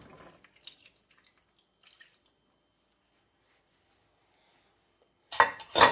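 Stock trickling from a saucepan into a glass baking dish as the pour tails off, with a few faint drips in the first two seconds. Near the end come two loud, sharp knocks.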